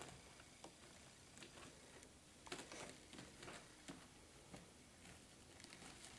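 Near silence with faint, scattered scuffs and soft clicks from two-week-old puppies crawling over blanket bedding, bunched together about halfway through.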